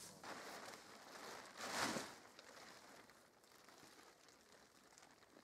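Green plastic tarp rustling as it is unfolded and shaken out, with one louder swish about two seconds in before it fades to faint crinkling.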